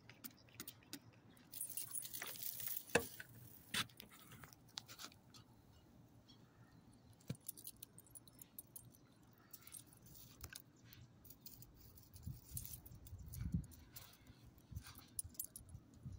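Quiet scattered clicks and rustling with light metallic jingling, from a small dog's collar tags and the phone camera being handled while the dog is petted. The jingling is loudest about two seconds in.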